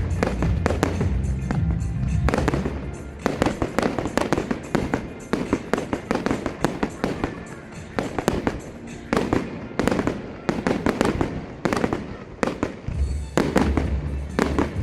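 Fireworks display: a rapid run of sharp bangs and crackling from exploding shells. Music with a heavy bass plays underneath at the start and comes back near the end.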